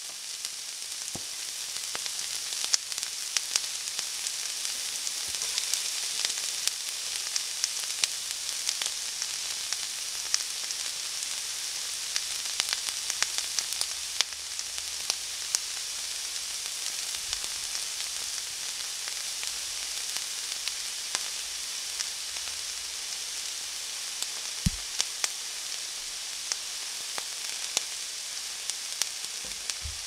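Chunks of chicken and beef with butter sizzling on a hot flat-top griddle: a steady frying hiss with frequent sharp pops and crackles of spitting fat.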